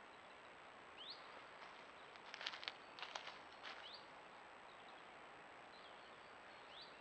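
Quiet woodland ambience picked up by a trail camera's microphone: a steady hiss with a thin high whine, a few short rising bird chirps, and a brief run of sharp clicks and ticks midway.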